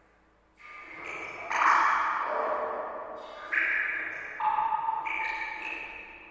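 Water drops falling into a pool in a cave. About half a dozen clear plinks, each at its own pitch, ring on and fade out before the next.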